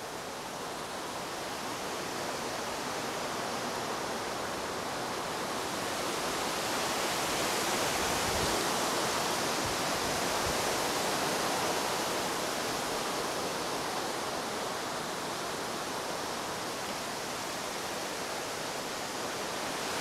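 Strong wind gusting through the trees as a thunderstorm moves in: a rushing noise that builds, peaks about halfway through, then eases off.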